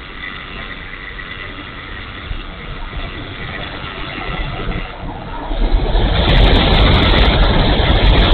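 Onboard sound of a ParkZone F4F Wildcat RC plane in flight: its electric motor and propeller whine steadily under a rush of wind. The rush grows markedly louder about five and a half seconds in.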